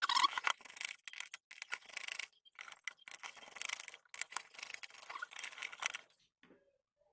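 Scraping and clicking of metal parts being worked loose inside a hard drive as a magnet is removed, in irregular bursts that stop about six seconds in.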